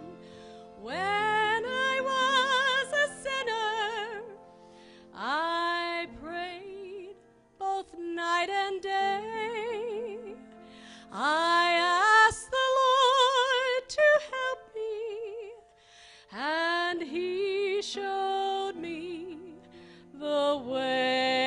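Live music from a small church band: acoustic guitars and piano under a lead melody with vibrato that slides up into each phrase, in phrases a few seconds long with short gaps between them.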